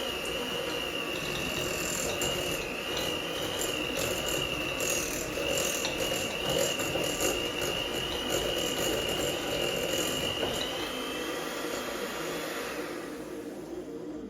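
Electric mixer beating softened cream cheese and butter together, its motor running with a steady whine that winds down and stops near the end.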